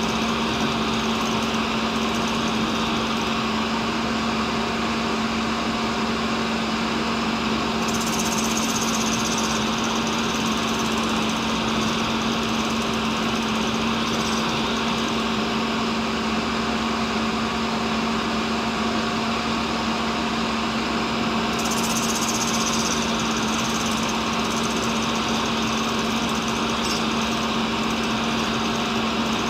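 Cincinnati tool and cutter grinder running, its wheel circle grinding the outside of a carbide-free high-speed endmill to turn it into a reamer: a steady motor hum under a continuous grinding hiss. The hiss turns brighter for a moment about a quarter of the way in and again about three quarters of the way in.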